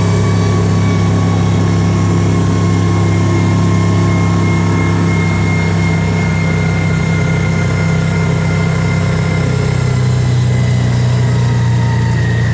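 Kawasaki Teryx side-by-side's engine running steadily under way, with a faint high whine over the engine note that eases slightly lower near the end.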